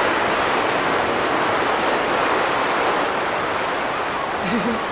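Sea surf washing on the shore, a steady rushing noise.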